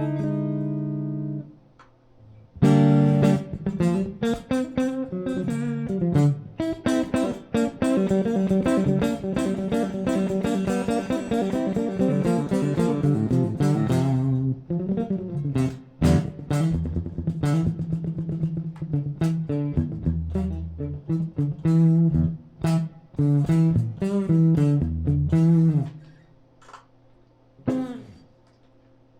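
Ibanez AZ24S electric guitar being played: a held chord that stops about a second and a half in, then, after a short pause, a long run of fast single notes and chords. The playing stops near the end, leaving a couple of lone plucked notes.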